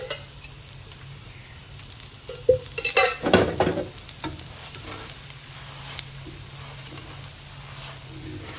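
Stuffed paratha sizzling in ghee on a flat griddle (tawa), a steady frying hiss. Between about two and four seconds in, a flat metal spatula scrapes and knocks against the griddle in a quick cluster of clatters.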